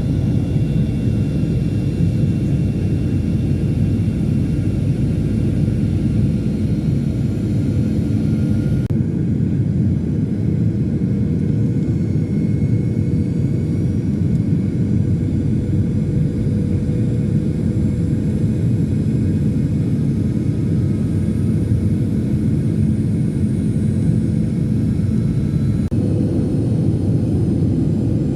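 Airliner engines heard from inside the passenger cabin: a steady, loud, deep rumble with a few faint steady tones above it. The higher hiss thins out about nine seconds in and returns near the end.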